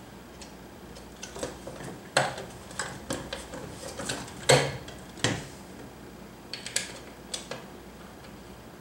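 Swing-arm lamp's head and arm bracket clicking and knocking as they are handled and fitted together: a run of irregular sharp clicks, the loudest about two seconds in and again around four and a half and five seconds.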